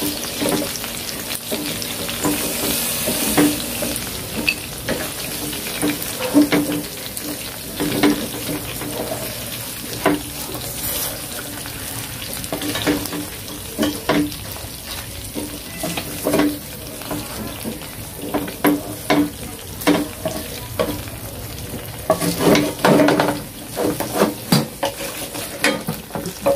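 Chicken pieces sizzling in hot oil in a nonstick pan, browning, with repeated short knocks and scrapes of a wooden spatula against the pan as the pieces are turned and lifted out; the knocks come thicker near the end.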